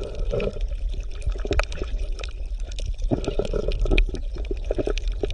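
Water bubbling and gurgling, with many small irregular pops over a steady low rumble.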